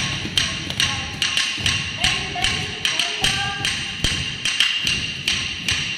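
Bharatanatyam rhythm-keeping: a wooden stick beaten on a wooden block in a steady beat, about two and a half sharp strikes a second, mixed with the dull thuds of bare feet stamping tatta adavu steps on a concrete floor.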